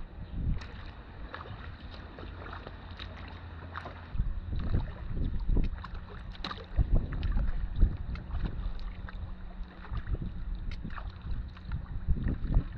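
Canoe paddles dipping and pulling through the water, with irregular splashes and drips and a few sharp knocks, over a steady low rumble.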